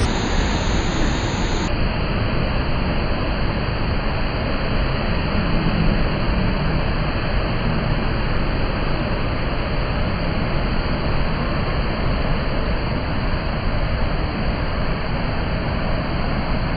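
Waterfall in monsoon flood, a wide curtain of muddy floodwater pouring over a rock ledge into churning rapids: a loud, steady rushing noise.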